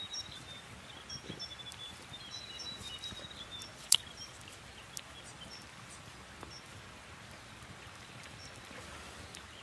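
Small kindling campfire of dry twigs crackling, with a sharp pop about four seconds in and a few softer ticks. A bird chirps repeatedly during the first few seconds over a steady background hiss.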